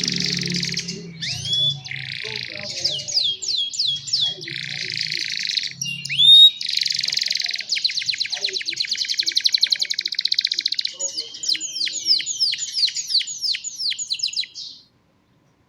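Young domestic canaries singing a long, continuous song of fast rolling trills and quick falling whistled notes, which stops abruptly near the end.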